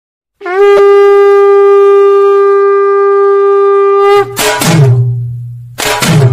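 Ringtone music: one long, steady horn-like note held for about four seconds, then loud drum hits with a deep bass boom, and a fast beat starting near the end.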